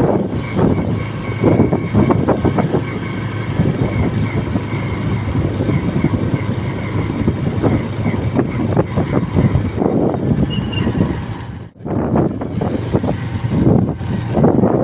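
Strong gusty wind buffeting the phone's microphone as a rough, rushing rumble that swells and falls in gusts. It cuts out sharply for a moment about twelve seconds in.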